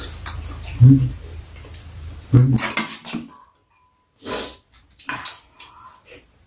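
Spoons and chopsticks clicking against ceramic bowls, mixed with eating sounds from two people eating soup. Two heavier low thuds come about one second and two and a half seconds in.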